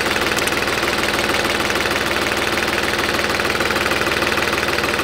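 Diesel tractor engine idling steadily, heard up close in the open engine bay, with an even, rapid beat of its firing.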